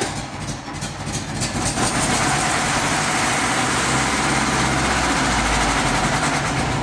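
Zetor 8045 tractor's four-cylinder diesel cold-starting after a year standing: it cranks with an even pulsing beat, catches about two seconds in, and then runs steadily and louder.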